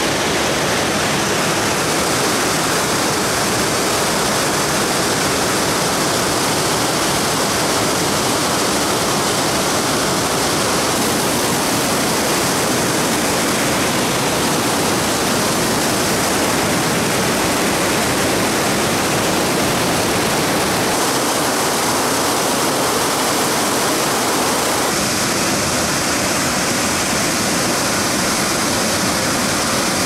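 River water rushing over a waterfall and through white-water rapids, a steady, dense noise of falling and churning water. Its tone shifts suddenly a few times, as the mix of falls and rapids changes.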